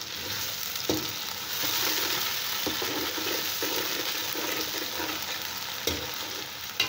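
Potato chunks and sliced onions sizzling in hot oil in a metal pot, the sizzle growing louder about a second and a half in, while a metal spoon stirs them. The spoon knocks sharply against the pot about a second in and twice near the end.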